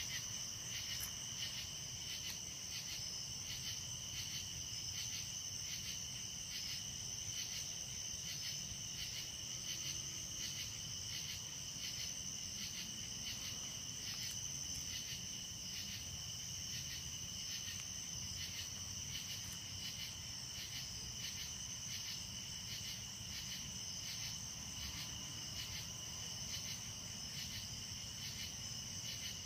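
Crickets chirping in a steady night chorus, a high trill pulsing evenly about twice a second, over a faint low rumble.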